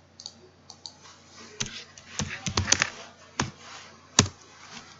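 Typing on a computer keyboard and clicking a mouse: a few light single clicks, a quick run of keystrokes around the middle, and one sharper click just after four seconds.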